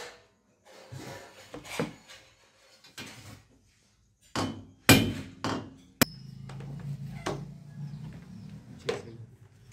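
A hammer driving large nails through a steel TV wall-mount bracket into a wall: about six sharp knocks over the first six seconds, the loudest about five seconds in. After that comes a steady low hum with one more knock near the end.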